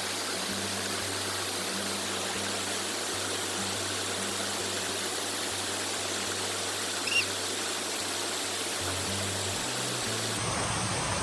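A 39 m waterfall pouring, heard close by as a steady rushing of falling water. There is a brief high chirp about seven seconds in.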